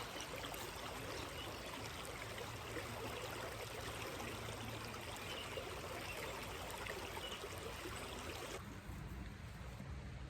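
Creek water running steadily, an even rushing hiss that turns duller and quieter suddenly near the end.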